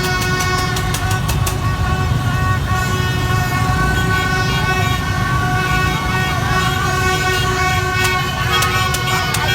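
Street celebration noise: a horn held on one steady note over the low rumble of many motorbike engines, with rapid sharp beats in the first second and a half and again near the end.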